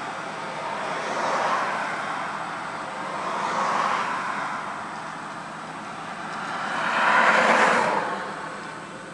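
Cars passing by on the road, heard from inside a vehicle: three swells of engine and tyre noise that build and fade, the loudest about seven seconds in.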